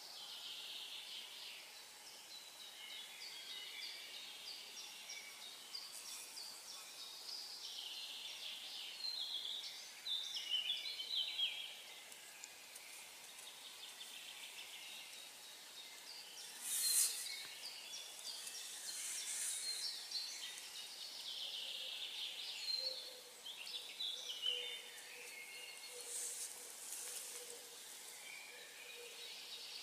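Several small songbirds singing and calling at once, a chorus of short chirps and warbling phrases, with a few sharp, very high-pitched calls partway through.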